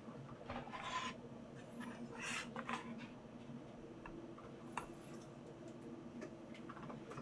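Soft rubbing and rasping noises twice in the first few seconds, then a few sparse, isolated keystroke clicks on a 404 Harpe65 mechanical keyboard with BSUN Red Wine linear switches and GMK keycaps, rather than steady typing.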